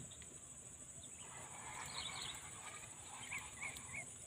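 Steady high-pitched insect drone from the lakeside vegetation, with a small bird giving three short chirps near the end.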